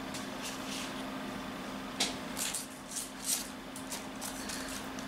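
Small clear plastic bag being handled and lifted out of a cardboard phone box, giving short crinkling rustles, thickest about two seconds in. A faint steady hum runs underneath.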